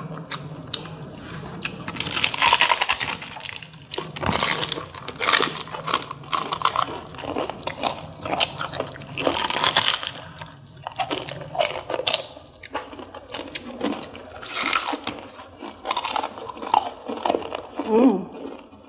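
Close-miked eating: repeated crunching bites and chewing of crunchy food, in irregular bursts.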